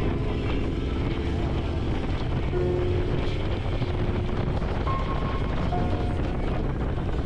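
Motorcycle engine running steadily on the move, with wind rushing over the helmet-mounted microphone.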